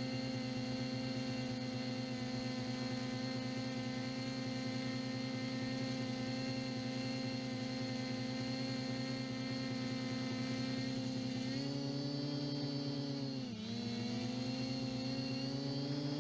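Brushless motors and propellers of an MJX Bugs 2W quadcopter whining steadily, heard close up from a GoPro strapped to the drone. About twelve seconds in the pitch steps up, dips briefly a couple of seconds later, then climbs back.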